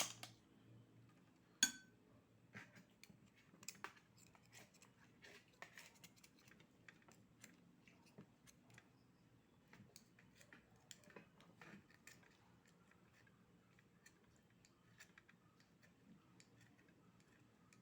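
Faint, scattered clicks and taps of oyster shells and eating utensils being handled, with one sharper clink a little under two seconds in.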